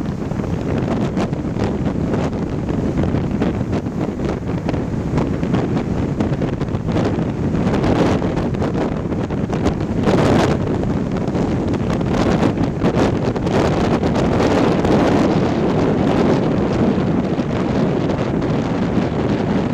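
Strong wind buffeting the microphone, over waves washing onto the beach, with a stronger surge about halfway through.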